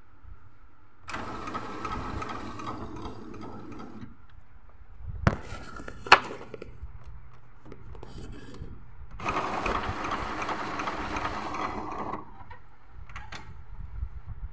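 Epson L380 inkjet printer's mechanism running in two spells of about three seconds each during a power ink flush, as the printer's pump draws ink through the print head to clean it. Two sharp clicks come between the spells.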